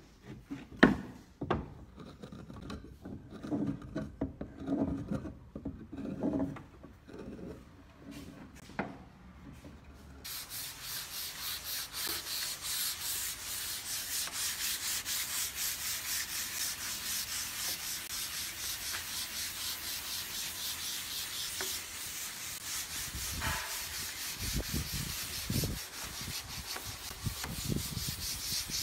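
Wooden pieces knocked and shifted about on a workbench, then wood being sanded: a steady rasping that starts suddenly about ten seconds in and runs in even strokes, followed near the end by a few dull thumps.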